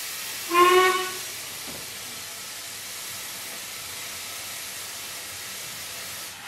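Steam hiss from a standing 2-6-2 tank steam locomotive, heard from inside the train, with one short blast of its steam whistle about half a second in. The whistle is the loudest sound.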